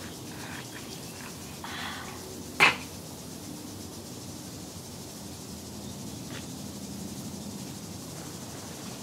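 A cream pie in its tin pressed down onto a person's head, with one sharp smack about two and a half seconds in; otherwise low steady background noise.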